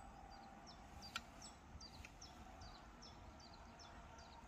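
A small bird calling faintly and repeatedly, short high falling notes about three a second, over a low rumble, with a single sharp click about a second in.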